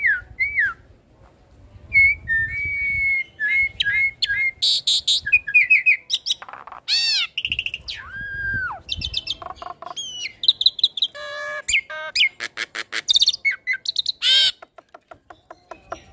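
Hybrid of an Asian pied starling and a Nias hill myna singing a varied song of whistled notes, glides and harsh squawks, ending in a fast even run of clicks.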